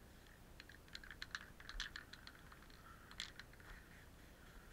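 A quick, irregular run of light clicks and ticks lasting about two seconds, starting about a second in, over otherwise near-quiet outdoor background.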